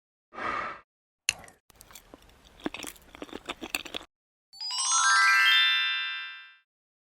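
A short soft whoosh, then a run of light clicks and small clinks, then a rising chime glissando of bright ringing notes that fades out.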